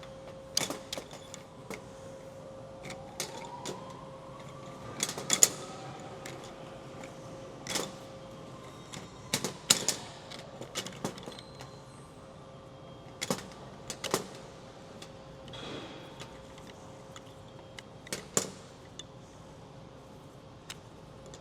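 Irregular clicks and knocks of small parts of a pneumatic vacuum generator being handled and pulled off by hand, over a steady machinery hum with one constant tone.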